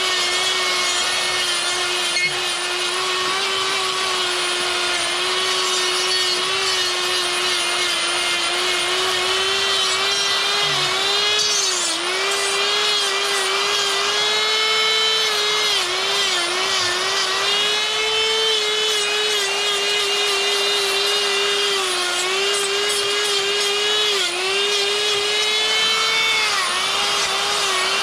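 Die grinder with a sphere burr running at a steady high whine while carving fur texture into wood. Its pitch sags briefly every few seconds as the burr bites into the wood.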